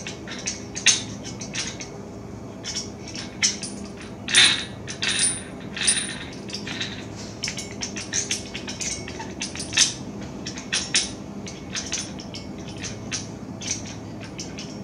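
Irregular sharp metallic clicks and clinks of hand tools against small steel parts, as the washer behind the axle nut is worked out of the wheel hub.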